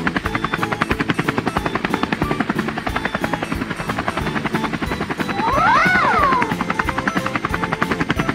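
Cartoon helicopter rotor sound effect: a fast, steady chopping. About six seconds in, a pitched glide rises and falls once over it.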